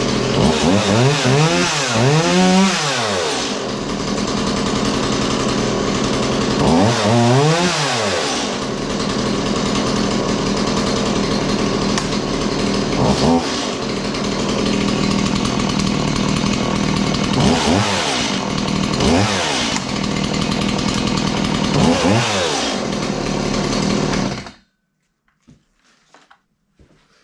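Stihl MS 180 two-stroke chainsaw engine running after firing right up on the proper choke procedure, so no fault. It is revved up and back down several times, then shuts off abruptly near the end.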